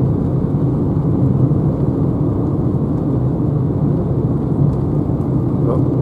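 Renault Zoe electric car cruising at about 80 km/h, heard from inside the cabin: a steady low rumble of tyre and road noise.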